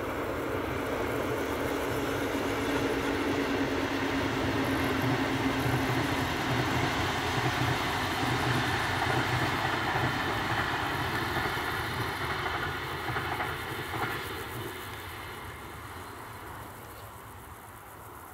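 Passenger train hauled by a class 182 (Siemens Taurus) electric locomotive passing: a steady rush and rumble of wheels on rail with a steady hum through the first half, fading away over the last few seconds as it draws off.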